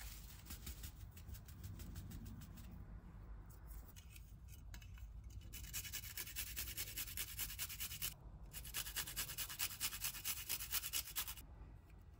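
A garlic clove being grated on a small flat metal hand grater: quick, rhythmic rasping strokes. They are softer in the first few seconds, then louder in two runs from about six seconds in, with a brief break between them, and they stop shortly before the end.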